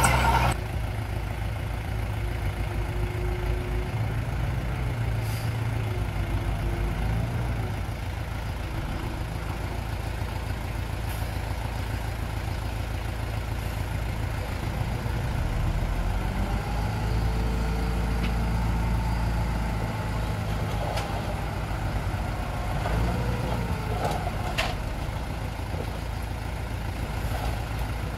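Heavy machine's diesel engine running steadily, its low engine note growing a little louder for a few seconds midway.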